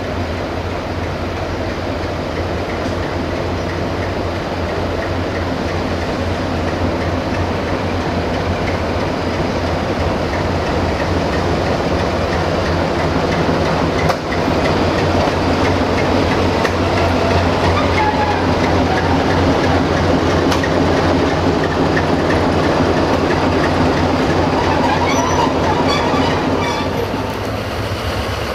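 CFR 060-DA (Electroputere LDE 2100) diesel-electric locomotive moving along the station track towards the listener on a shunting move. Its twelve-cylinder Sulzer diesel engine runs steadily under the clatter of wheels over the rail joints, growing louder as it comes close.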